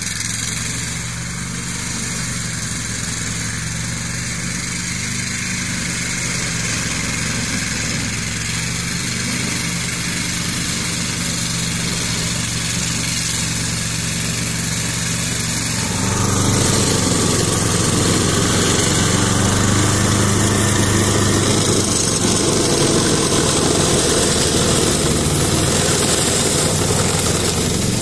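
Ferrari 95RS compact tractor with its 40 hp Lombardini engine running steadily, driving a front-mounted Alfagri brush-cutter mower through grass. The sound grows markedly louder and fuller a little past halfway as the tractor comes close.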